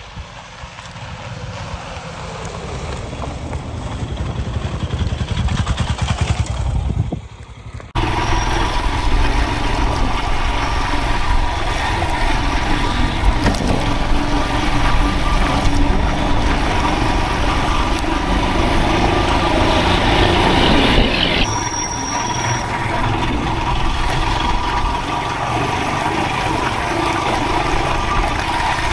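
Vehicles pass on a rough dirt road, their rumble swelling over the first several seconds. After a brief drop about 8 s in, a motorcycle engine runs steadily under way, heard from on the bike as it rides the unpaved road.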